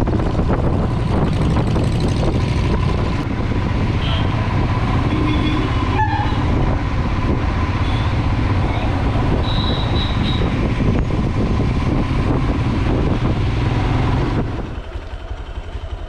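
Motorcycle engine running at road speed with wind rushing over the microphone, a steady dense rumble that drops off about a second and a half before the end.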